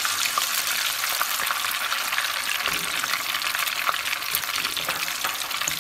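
Onion paste sizzling in hot mustard oil in a wok, a steady crackling hiss, with a spatula stirring and scraping through it.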